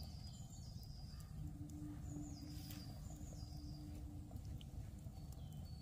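Songbirds singing: repeated high phrases of notes that step down in pitch, over a constant low background rumble. A low steady hum comes and goes through it.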